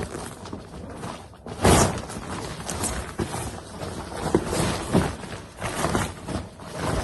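Rustling and handling noises of an inflatable unhooking mat being unrolled and moved about, with a louder thump about two seconds in.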